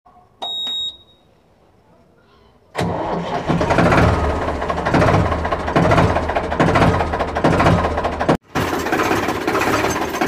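A short high electronic beep, then about three seconds in the Ford 3600 tractor's engine starts suddenly and runs loudly with an even pulse about twice a second. It cuts out for a split second near the end.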